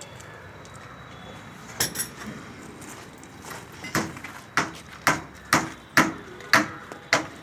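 Hammer blows: a few scattered strikes, then a steady run of about two a second from about four seconds in.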